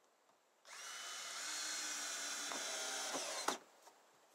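Cordless drill running into the wooden boards of a dog house: a steady whine for about three seconds that stops suddenly with a sharp click.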